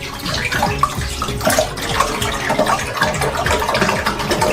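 Liquid egg whites being poured into a saucepan: a continuous splashing pour.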